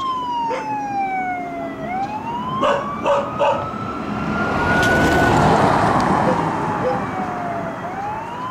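Police vehicle siren wailing, its pitch sliding slowly down and back up about every five to six seconds. A rush of broader noise swells under it, loudest about five to six seconds in.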